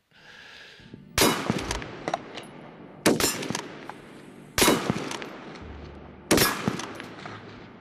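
Rifle fired in rapid succession: four sharp shots about one and a half to two seconds apart, each with a short ringing tail, and lighter clicks between them.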